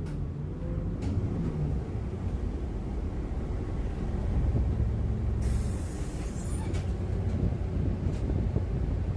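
Street traffic noise: a steady low rumble of passing vehicles, with a short hiss about five and a half seconds in.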